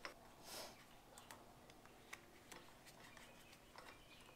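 Near silence, with a few faint scattered clicks and light taps from gloved hands handling a magnetic drill press on a steel bench.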